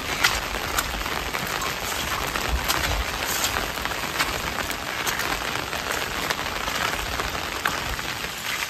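Steady rain falling, with many separate drops striking a nearby surface.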